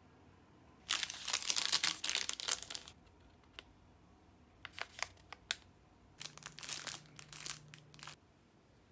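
Crinkling of wrapping being handled, in three spells: about two seconds from a second in, a brief one around the middle, and nearly two seconds near the end, the last with a faint low hum beneath.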